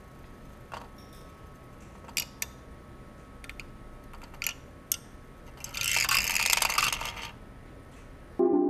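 LEGO Technic spinning tops on a LEGO brick platform: scattered light plastic clicks and knocks as the spinning tip skitters over the bricks, then a loud plastic rattling clatter for about a second and a half a little past the middle.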